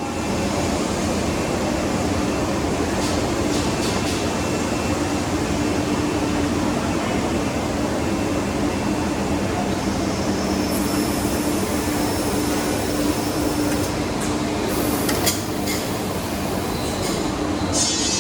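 A Citizen Cincom K16 CNC lathe running with a steady mechanical hum. A few short hisses and sharp clicks come in during the second half.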